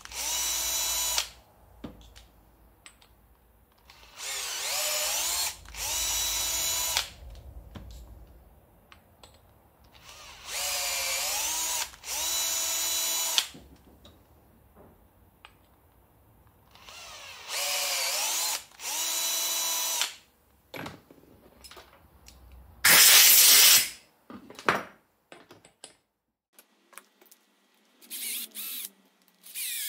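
Cordless pistol drill power-tapping threads into small aluminium parts. The motor runs in short one-second bursts, each rising in pitch as it spins up, and they come in four pairs: the tap is driven in, then reversed out. Light clicks of parts being handled sit between the pairs, and a short, louder hiss comes about two-thirds of the way through.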